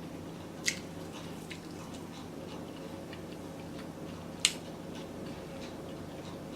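Quiet mouth sounds of someone chewing food, with small wet ticks and two sharp clicks, one about a second in and a louder one past the middle, over a steady low room hum.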